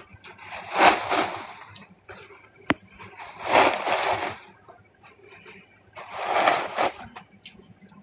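Water splashing in three short bursts of about a second each, with a single sharp click between the first two.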